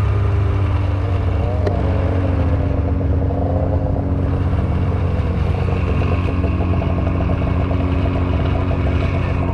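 Two-stroke snowmobile engine running steadily at a constant speed while the sled travels across the ice.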